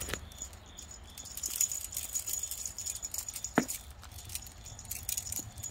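Light scattered jingling and clicking as kittens bat at a cat toy and tug their harness leads, with a sharper knock near the start and another about three and a half seconds in.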